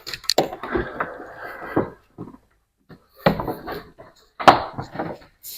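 Irregular rustling, scraping and knocks of hands-on work, in two spells of about two seconds each.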